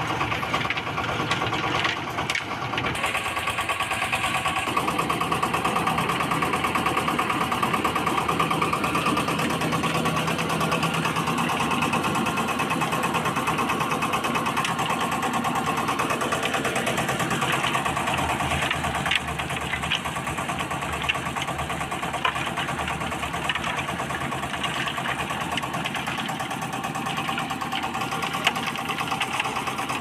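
Engine of a portable drum concrete mixer running steadily as the drum turns a batch of concrete, with a few sharp clicks in the latter part.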